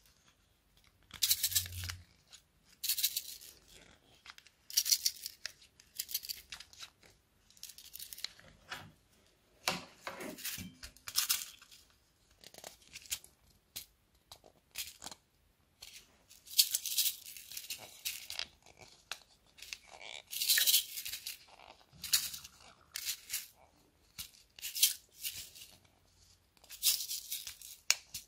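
Small gold nail-art studs rattling and clicking inside a round plastic rhinestone wheel case as it is handled and turned, in repeated short crisp bursts about every second or two.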